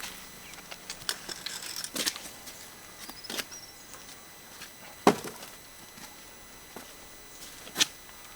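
Scattered knocks and clatters of firewood being handled and loaded onto a cart, with two sharper knocks about five and nearly eight seconds in.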